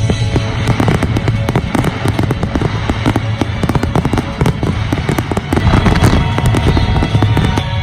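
Aerial fireworks going off in a dense, rapid run of sharp pops and bangs, loudest about six seconds in, with music playing underneath.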